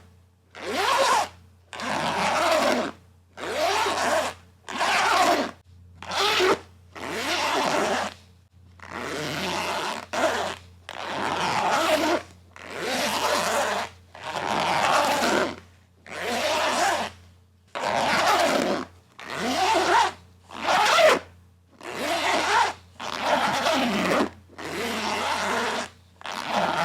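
A zipper being pulled, over and over, about twenty separate pulls with short pauses between them. Some pulls are quick and some are slower and longer.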